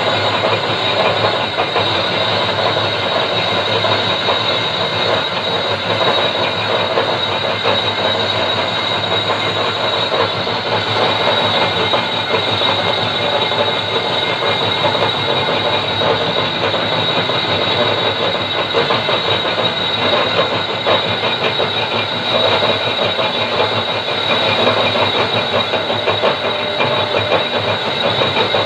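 Metal lathe turning a large grooved belt pulley, the tool bit cutting the spinning metal: a loud, even, rattling grind with a steady high-pitched whine over it.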